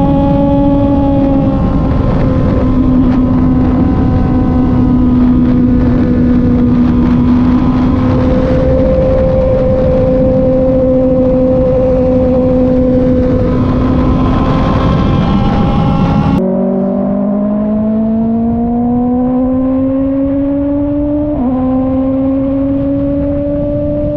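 Kove 450rr single-cylinder motorcycle engine under way at steady revs. About two-thirds in, the pitch drops suddenly, then climbs as the bike accelerates, with one brief dip of a gear change near the end.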